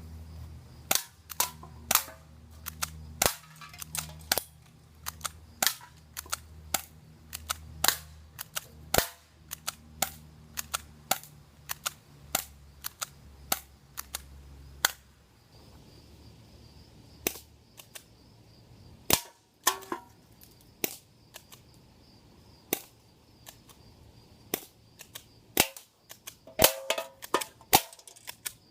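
Airsoft gun firing shot after shot in quick succession: sharp snaps at an irregular pace, often one to three a second.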